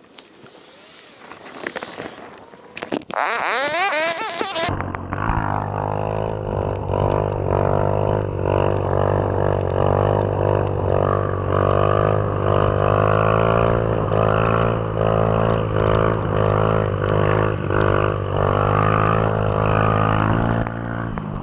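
Wind and rain noise on the microphone with scattered clicks. About five seconds in this gives way to a motorcycle engine running at a steady, droning pitch while riding.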